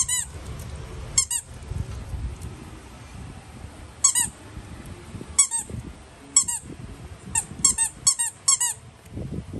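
A squeaky dog toy squeezed by hand, giving about ten short, high squeaks: a few spaced a second or more apart, then five or six in quick succession near the end.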